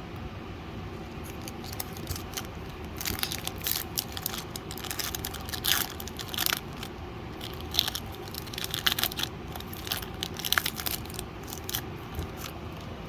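Foil wrapper of a Pokémon trading card booster pack being torn open and crinkled, in a run of short, irregular crackles over a steady low hum.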